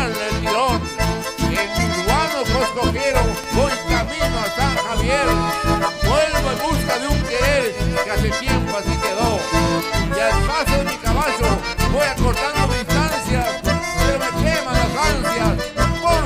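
Live band music led by button accordions, over acoustic guitars and a steady bass-heavy beat.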